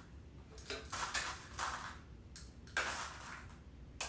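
A series of about six short rustles and light clatters from toys and packaging being handled.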